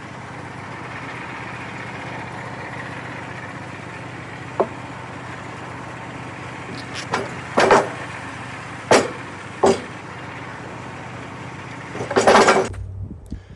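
An engine running steadily, with a few sharp knocks and clanks, the loudest and longest near the end, after which the engine noise drops away.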